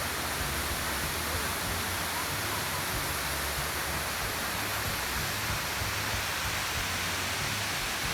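Steady rushing of the Indian Falls waterfall, an even noise with no change in level.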